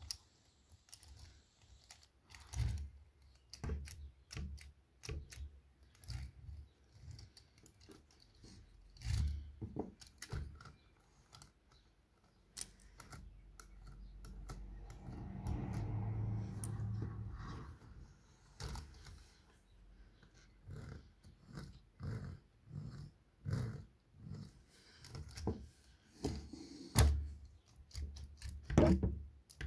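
Plastic Lego Technic parts clicking and knocking as a front axle with steering, suspension and differential is handled on a wooden table: rolled, steered and pressed down on its springs. A longer, steady noise swells and fades in the middle.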